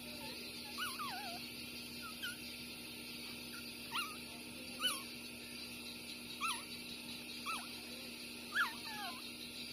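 Newborn puppies, six days old, whimpering with short, high squeaks while they nurse. About ten brief cries rise and fall in pitch, scattered through the stretch, and the loudest come about five seconds in and near the end.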